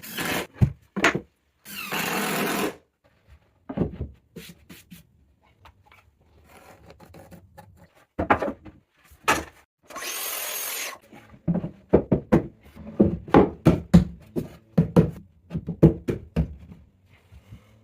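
Workshop sounds of assembling a plywood cabinet: sharp knocks and taps on wood, with a dense run of them in the second half, and two steady hissing bursts of about a second each from a power tool.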